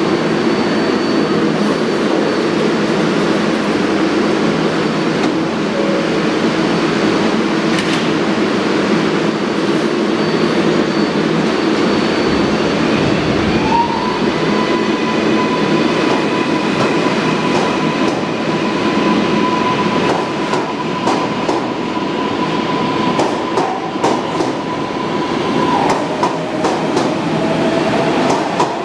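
R142A subway train standing at the platform, then pulling out. Halfway through, a rising electric motor whine levels off into a steady tone as the train gathers speed; near the end the tone drops and climbs again. Clacks of the wheels over the rail joints come in the last several seconds.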